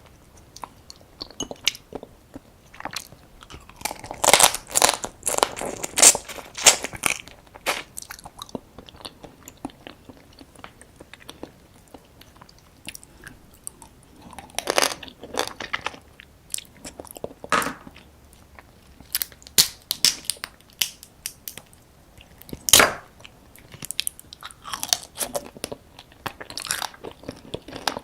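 Close-miked eating of soy-sauce-marinated raw crab (ganjang gejang): biting, crunching and chewing through the crab in bursts of crackling clicks with short pauses between, with one sharp, loud crack late on.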